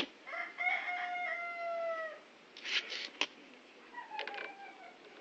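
A rooster crowing: one long crow that holds its pitch and falls away at the end, then a shorter, fainter call about four seconds in. A few sharp metallic clicks from hand tools come just before the second call.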